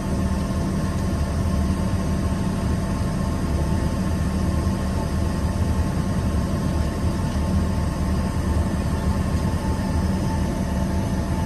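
Steady cabin noise inside an Embraer ERJ-145 regional jet before takeoff: a low rumble with a steady hum and a fainter high tone from the aircraft's engines and air system.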